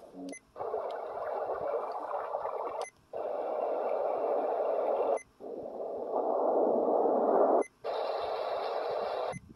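Sharper Image Design Travel Soother 20 (SI621) playing its built-in nature sounds through its small speaker, a steady hiss-like wash of surf and rain, stepping to a new sound about every two seconds. Each change cuts the sound for a moment with a faint short beep.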